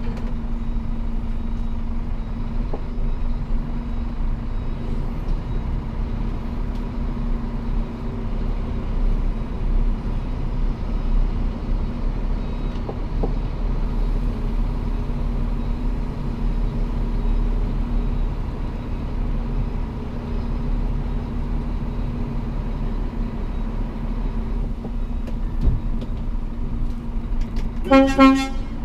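Scania P360 truck's diesel engine running steadily under way, a constant low drone. Near the end a horn gives one short toot.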